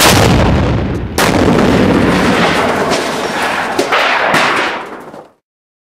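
Two blasts from thermobaric warheads detonating, one at the start and a second about a second later, followed by a loud rumble that fades and cuts off abruptly about five seconds in.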